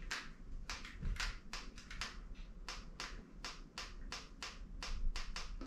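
Rapid sharp clicking, about three clicks a second, from a cordless hair clipper with a flat battery being worked to get it running; no motor sound, as it will not start.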